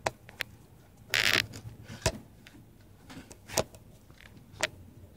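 Handling noise: a few light knocks scattered irregularly, with a brief rustling swish about a second in.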